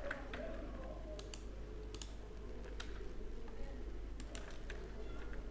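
Computer mouse buttons and keyboard keys clicking, about a dozen short, sharp clicks at irregular intervals over a low steady hum.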